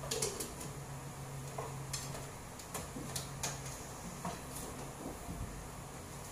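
Kitchenware being handled at a counter: a scattering of light clinks and knocks of lids, pots and utensils. A low steady hum underneath stops a little over halfway through.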